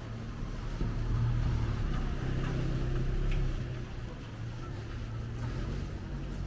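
Low engine rumble of a motor vehicle, swelling louder for a couple of seconds about a second in.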